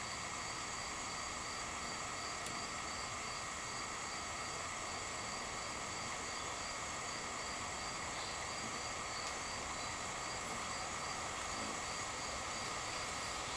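Steady insect chorus in late-summer woods: a constant high drone with a regular, evenly spaced high pulsing call running through it.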